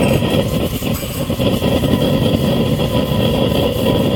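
Propane forge burner running, a loud, steady rush of burning gas.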